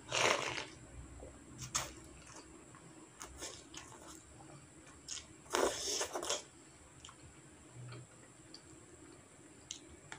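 A person slurping instant noodles in soup off a plastic spoon, two loud slurps under a second each, one at the very start and one about halfway through, with quiet chewing and small mouth clicks between.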